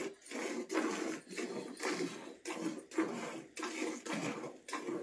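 Hand-milking a cow into a metal pail: the teats are squeezed in turn, and each squirt of milk hisses into the frothy milk in the pail in a steady rhythm of about two squirts a second.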